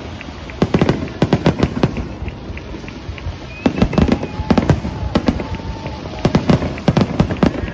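Aerial fireworks going off in rapid volleys of sharp bangs and crackles, in three dense clusters each lasting about a second.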